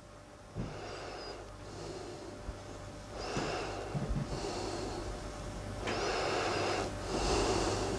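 A man breathing in and out heavily and steadily close to a clip-on microphone, each breath about a second long.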